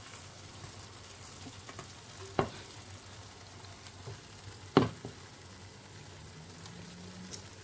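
Tomato stew sizzling faintly in a steel pan, with two sharp knocks of a wooden spoon against the pan as the stew is scooped out; the second knock, a couple of seconds after the first, is the louder.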